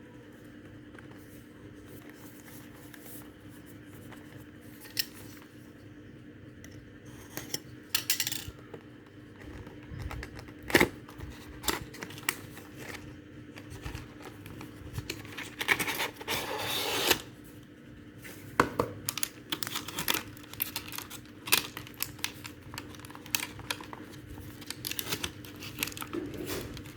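A sealed cardboard power-bank box being handled and opened by hand: scattered clicks, scratches and taps on card and plastic, with a longer tearing sound about two-thirds of the way through, over a faint steady hum.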